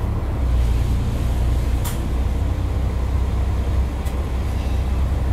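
Neoplan Centroliner double-decker bus engine running with a steady low drone, with a short sharp click about two seconds in.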